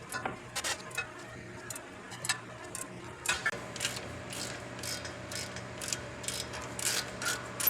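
Ratcheting breaker bar clicking, one or two clicks a second, as it is swung back and forth to turn a ball joint nut on the truck's front suspension.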